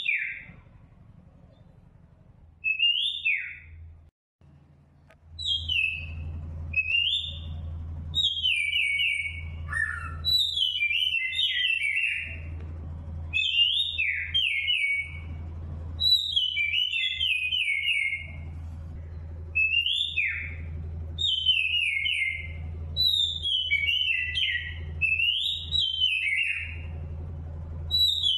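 Small bird chirping: quick runs of high, twittering calls that slide up and down, coming every second or so, over a low steady hum.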